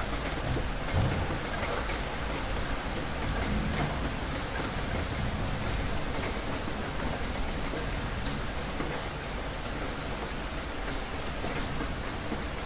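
Heavy rain falling steadily and densely on hard surfaces, with low thunder rumbles in the first few seconds.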